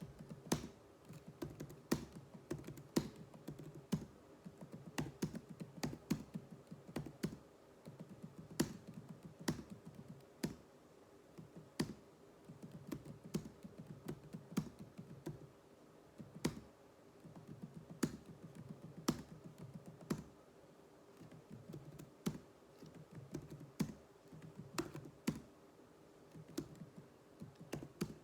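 Typing on a computer keyboard: uneven keystrokes, a few a second, over a faint steady hum.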